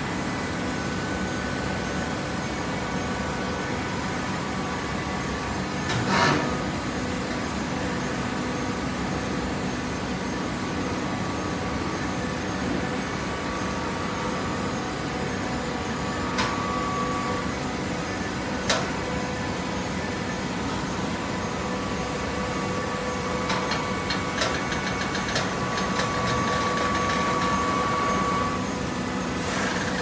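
TCM horizontal hydraulic baler running with a steady mechanical hum. A few sharp clanks break in, the loudest about six seconds in, and near the end it grows louder with a higher whine.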